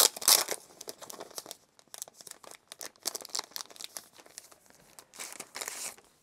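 Packaging crinkling and rustling as a small packet of art prints is opened and handled, with many short crackles and two louder spells of rustling, one right at the start and one about five seconds in.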